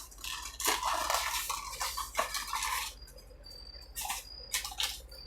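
Small cosmetic pencils and their packaging being handled: a run of light clicks and rustles for about three seconds, then a few scattered clicks.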